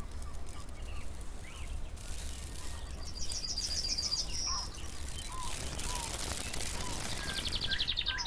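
Wild birds calling outdoors: a rapid high trill twice, and scattered short chirps, over a steady low rumble and hiss.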